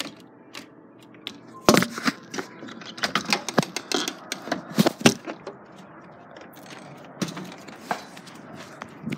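A rapid, irregular flurry of sharp clicks, knocks and scrapes, densest from about two to five seconds in, then thinning to a few scattered taps.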